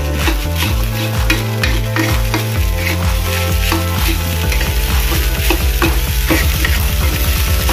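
Metal spatula scraping and stirring rice around a wok in quick repeated strokes, with the rice frying and sizzling in leftover chilli sambal.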